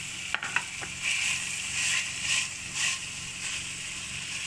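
Chicken pieces with chopped onion, tomato and green chillies sizzling in a frying pan, with a few sharp taps in the first second and then repeated swells of scraping as they are stirred with a plastic spatula.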